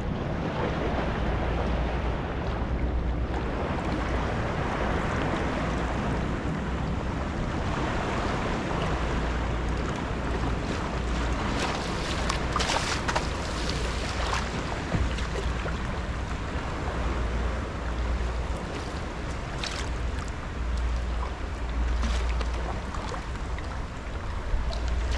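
Wind buffeting the microphone with a low rumble that swells and eases, over sea water sloshing and lapping around a sea kayak, with a few brief paddle splashes.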